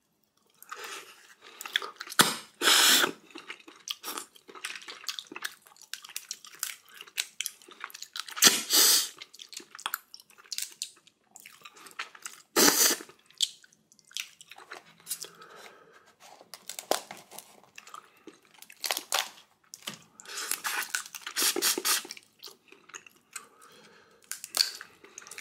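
Close-miked eating of red snow crab and ramen: chewing, crunching and biting, broken by a handful of loud slurps a few seconds apart.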